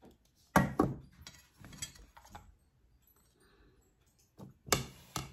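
Clinks and clatters of a stainless steel pot lid and china plates being handled on a table: a sharp clink about half a second in, a few lighter ones after it, and more near the end.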